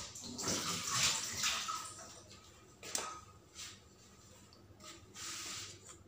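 Raw egg white trickling and dripping from a small hole in the shell into a stainless steel mixer-grinder jar, in uneven spells of splashing.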